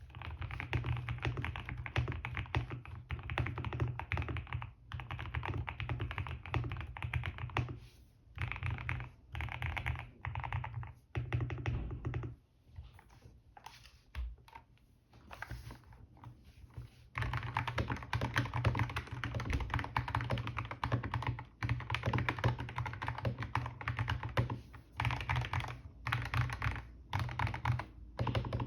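Rapid typing on custom mechanical keyboards with lubed linear switches: dense runs of muted keystrokes in bursts with short pauses. It thins to sparse, quieter keystrokes for a few seconds in the middle.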